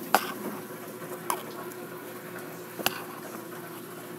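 Three sharp clicks from a phone being handled, over a faint steady hum in a small room.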